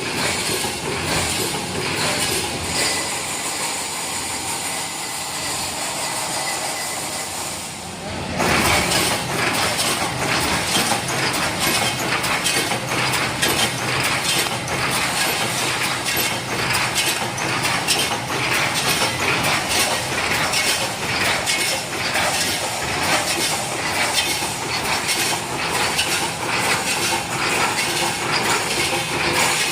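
Automatic wire mesh welding machine running, with rapid repeated metallic clanking from its welding and wire-feeding cycle. About eight seconds in the sound abruptly becomes louder and busier.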